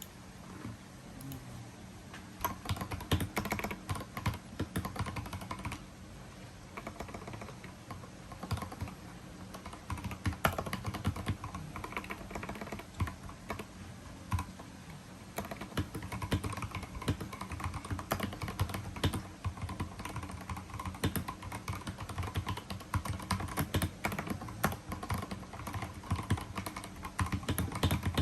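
Typing on a Lychee GK98 mechanical keyboard fitted with lubed Gateron Pro Brown tactile switches: a continuous run of keystroke clacks, easing off briefly a few seconds in and again about halfway.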